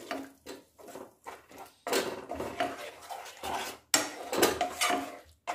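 Spatula scraping and stirring a wet onion-tomato masala in a nonstick frying pan, heard as a string of irregular scraping strokes with short pauses between them.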